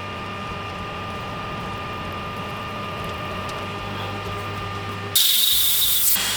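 Metal lathe running steadily while turning a steel bar shaft. About five seconds in, a much louder high hiss cuts in for about a second, then drops to a steadier hiss.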